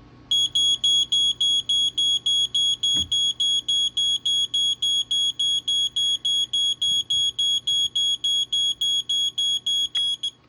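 Fyrnetics 1285 smoke alarm's piezo horn sounding on test: a high-pitched beep pulsing evenly about four times a second for about ten seconds, then stopping. Tape over the horn keeps it quieter than full volume.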